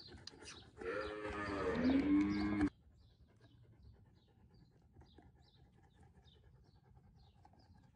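A calf moos once, loudly, for about two seconds, and the call cuts off abruptly. After it, faint bird chirps repeat a few times a second.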